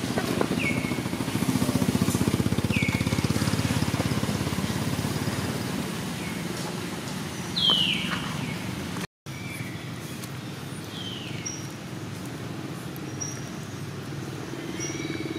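A small engine running steadily with a low rumble, louder in the first five seconds. Several short high chirps, each falling in pitch, sound over it; the loudest comes just before eight seconds.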